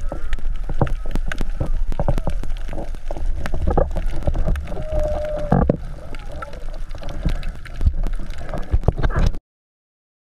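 Underwater reef noise picked up through an action camera's housing: dense crackling clicks over a steady low water rumble, with one drawn-out moaning tone about five seconds in. The sound cuts off abruptly near the end.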